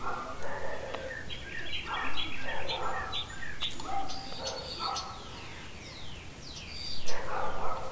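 Birds chirping, with quick falling chirps in the middle seconds, over faint distant voices.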